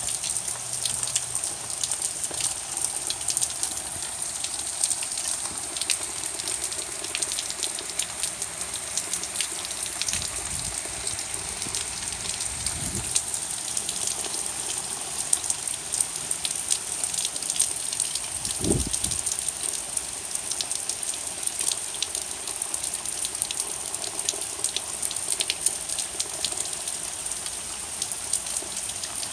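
Steady rain falling, with many individual drops pattering close by; a brief low thump about two-thirds of the way through.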